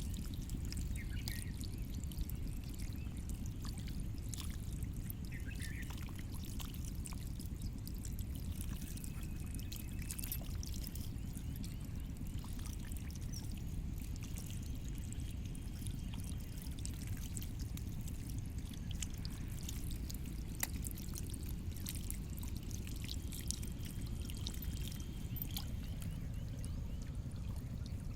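Steady rush of pouring, splashing water, with faint scattered ticks.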